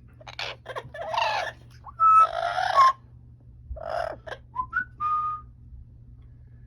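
Amazon parrot calling in a run of short squawks and chattering sounds mixed with a few clear whistled notes, one of them a quick rising whistle.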